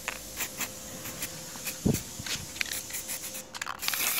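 Scattered light clicks and handling noise, with one dull thump about two seconds in, then a short hiss of an aerosol spray-paint can near the end.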